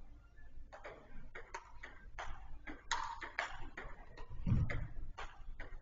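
Small-sided football game on artificial turf in a large indoor hall, heard from a distance: scattered sharp knocks and taps of the ball being kicked and bouncing, with a busier stretch around three seconds in.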